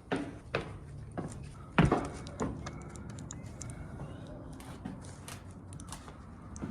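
Irregular footsteps and knocks on a hard floor, the loudest about two seconds in, thinning to scattered light ticks later.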